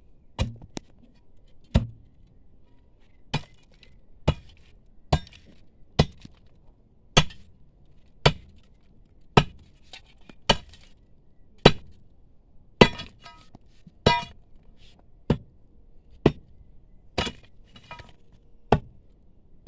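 Hammer blows on a steel chisel breaking rock, a sharp metallic clink about once a second, a few strikes ringing longer. The stone gives way only bit by bit.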